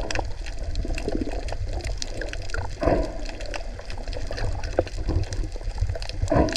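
Underwater water sound: a steady muffled wash with small crackling clicks and gurgling. Two stronger bubbly surges come about three seconds in and near the end.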